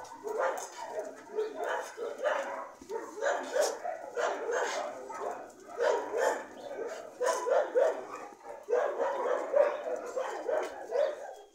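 Several dogs barking and yelping over one another, a steady stream of short, overlapping barks.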